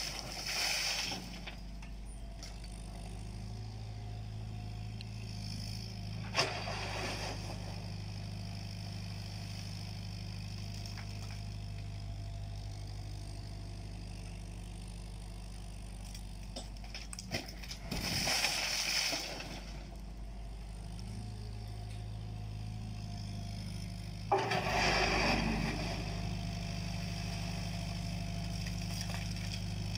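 A JCB 8050 mini excavator's engine runs steadily as it digs. Four louder bursts of earth and stones scrape in the bucket or tip into a trailer: the first right at the start, then one a few seconds later, a long one past the middle and another near the end.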